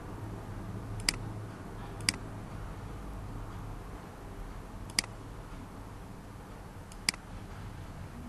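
Four sharp computer mouse clicks, spaced irregularly over several seconds, over a steady low hum.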